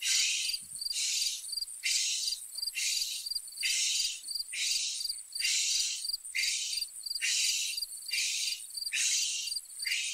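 Insects chirping in an even rhythm, about three high, buzzy chirps every two seconds, like a cricket chorus.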